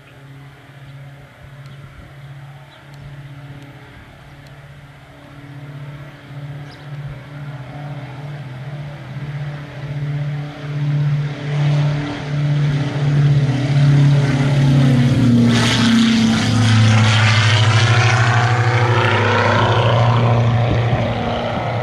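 Diamond DA42 Twin Star, a light twin-engine propeller aircraft, on its takeoff run and climb-out: a steady engine drone that grows louder with a pulsing beat. Around the middle the pitch drops, and the drone then holds at its loudest.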